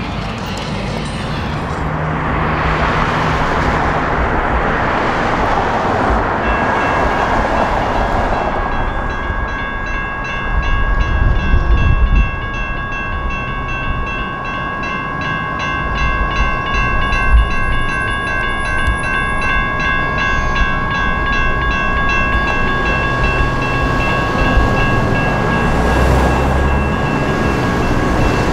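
Electronic railroad-crossing bell starting about six seconds in and then ringing without pause, a fast run of repeated dings over a low rumble of passing traffic and rail vehicles.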